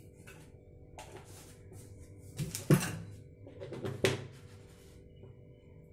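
Small steel tadka pan of hot oil and mustard seeds on a gas burner: a few scattered clicks and light knocks, the sharpest about three seconds in and another about four seconds in, over a faint steady hum.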